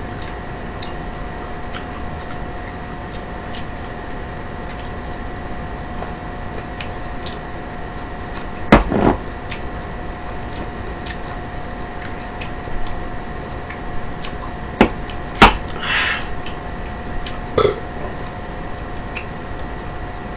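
A few sharp clicks and knocks of utensils against dishes at a meal, the loudest about nine seconds in and again a few seconds later, over a steady electrical hum.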